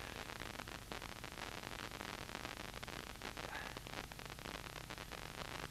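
Steady hiss with frequent faint crackles and a low buzz: the noisy audio of a weak 23 cm analogue amateur TV signal.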